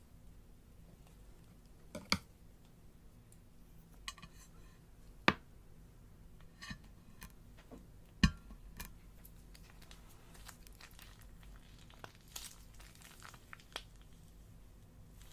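Slime being handled and pressed by hand: scattered small pops and clicks with faint crinkling between, three sharper pops about two, five and eight seconds in.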